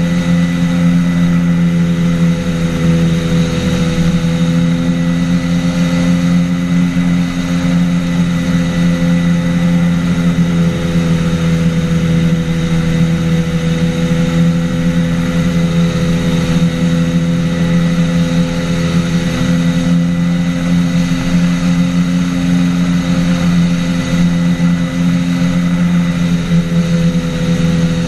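The engine and pusher propeller of a Polaris flying boat microlight running steadily in cruise flight. It is a constant drone that wavers slightly in pitch, with wind rushing over the microphone.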